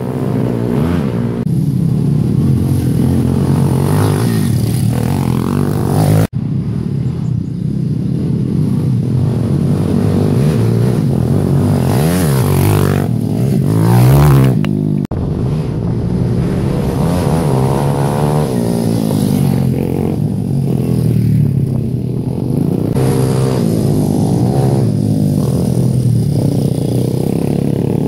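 170cc single-cylinder pit bike engines revving up and down as the bikes ride by, one passing close and loud about halfway through. The sound breaks off abruptly twice where the footage is cut.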